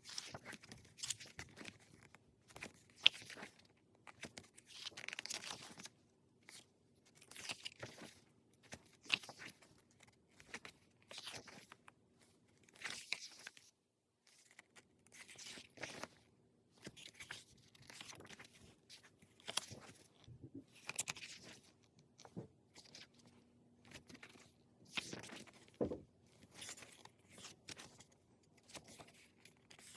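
Pages of an album photo book being turned one after another, each turn a short papery rustle, roughly one every second or two.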